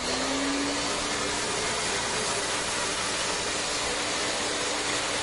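Steady rushing noise with a low, steady hum, from a running motor appliance; the hum rises slightly in pitch during the first second.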